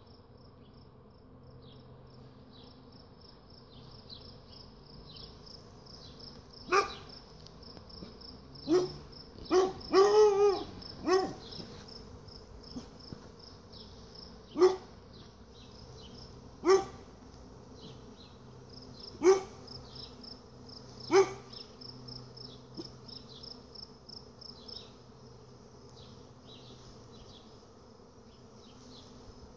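A swarm of bees humming steadily, with a dog barking in short single barks about nine times through the middle of the stretch; the barks are the loudest sound.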